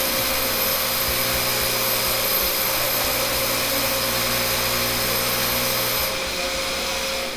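Loud, steady noise of a motor-driven machine running, with a constant whine over a low hum; the hum drops out about six seconds in.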